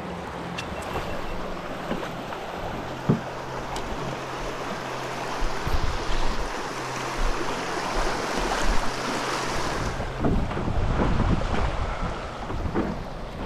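Shallow creek water rushing and rippling over stones, with wind buffeting the microphone and a single sharp knock about three seconds in. The low wind rumble grows heavier in the last few seconds.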